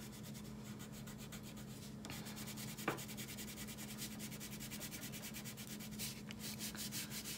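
A crayon rubbed quickly back and forth on paper, colouring in an area with rapid, even strokes that start about two seconds in. There is a single small click partway through.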